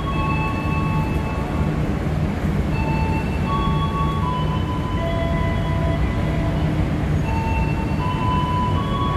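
Passenger train carriages rolling past a platform: a steady rumble of wheels on rails. A simple melody of clear, plain tones plays over it, the notes changing about twice a second.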